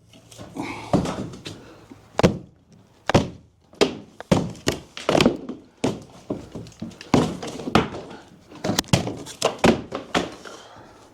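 An interior wall being knocked in by hand during demolition: a rapid, irregular run of heavy thuds and cracks as the wall material breaks and pieces fall.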